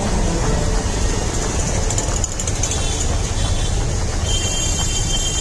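Street traffic noise: a steady low rumble of engines from auto-rickshaws and motorbikes, with a high steady tone, such as a vehicle horn, over it for about the last second.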